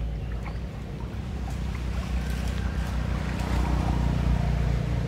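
Steady low rumble of wind on the microphone, with faint splashing of water as monkeys wade through floodwater.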